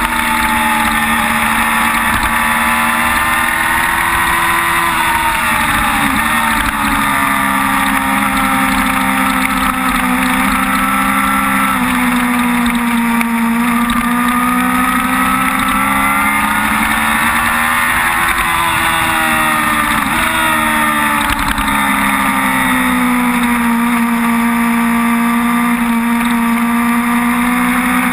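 Sport motorcycle engine running hard through a racetrack lap, heard from a camera mounted on the bike. Its pitch rises and sinks repeatedly with throttle and gear changes, with a few quick drops, over a steady rushing noise.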